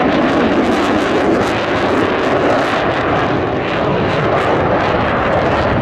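F/A-18 Hornet fighter jet passing low and fast, its twin turbofan engines making loud, steady jet noise.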